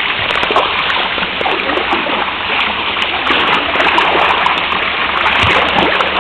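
Steady rush and splash of spraying water from a splash-pad shower.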